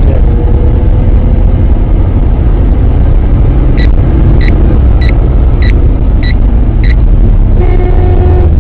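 Steady low rumble of a car driving, heard inside the cabin. About four seconds in come six short high electronic beeps, about 0.6 s apart, and near the end a car horn begins to sound in a steady tone.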